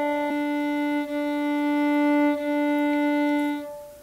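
Violin's open D string bowed on one steady note in alternating down-bows and up-bows, as a beginner bowing exercise. The bow changes direction about a third of a second in, again about a second in and about two and a half seconds in, and the note fades away near the end.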